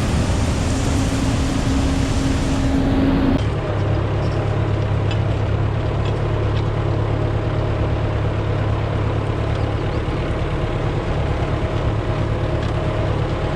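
Tractor engine running steadily. About three seconds in the sound changes abruptly: the hiss falls away and a steadier low hum carries on.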